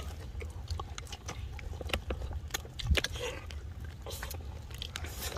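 Mouth sounds of people eating cow's feet and spicy instant noodles by hand: chewing, biting and smacking, heard as scattered short clicks and smacks over a steady low rumble.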